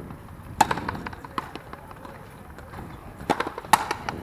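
Frontenis rally: sharp pops of the hollow rubber ball being struck by stringed racquets and rebounding off the wall and court. One loud pop comes about half a second in, followed by fainter ones, then a quick cluster near the end holds the loudest.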